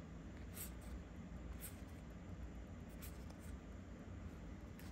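Faint handling of a stack of trading cards: a few soft card slides and flicks about a second apart as cards are moved through the hand, over low room hiss.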